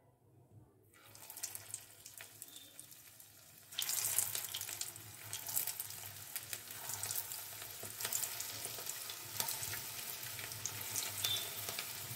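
Onion, potato and gram-flour fritters deep-frying in hot oil: a faint sizzle that jumps to a loud, steady sizzle with many small crackles and pops about four seconds in, as more pieces go into the oil.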